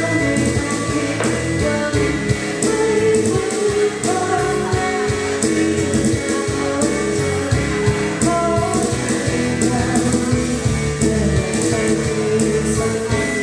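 Live music through a PA system: a song sung to a steady beat with instrumental backing.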